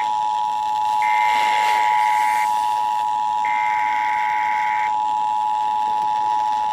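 Emergency Alert System two-tone attention signal (853 and 960 Hz) sounding steadily, with three bursts of digital SAME header data tones, each about a second and a half long, laid over it.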